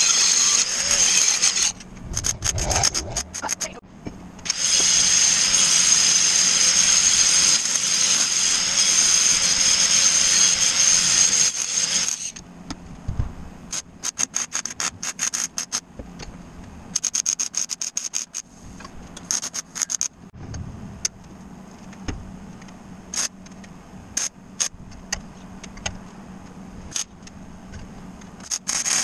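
A welder's arc on steel strut channel. A continuous weld stops about two seconds in; a few clicks follow, then a second continuous weld of about seven seconds, then a string of short bursts of a second or less, like tack or stitch welds.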